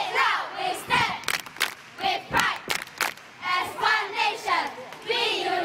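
A crowd chanting and shouting in short repeated calls, with sharp cracks among them.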